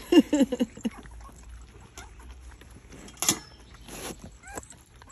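Dogs eating raw minced food from a stainless steel bowl: soft wet chewing and licking noises, with a sharp knock about three seconds in and a brief high squeak from a puppy near the end.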